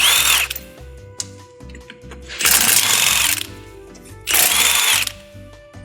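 Power impact wrench with a 19 mm socket running in three short bursts about two seconds apart, each rising and then falling in pitch, as it spins off the nuts holding a wheel spacer. Background music plays underneath.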